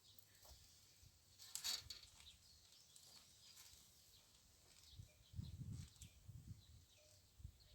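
Near silence outdoors, broken by a few faint clicks about a second and a half in and soft low thumps and rumbles from about five seconds in.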